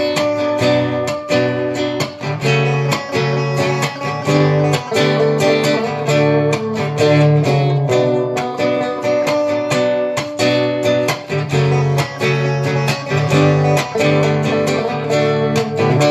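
Guitar strumming chords in a steady rhythm, playing the instrumental introduction before the vocals come in.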